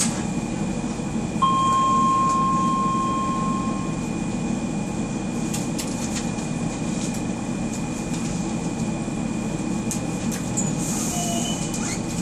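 Docklands Light Railway train standing still, its onboard equipment giving a steady low hum with a faint high whine. About a second and a half in, a steady tone starts and holds for about two and a half seconds, with a few faint clicks later on.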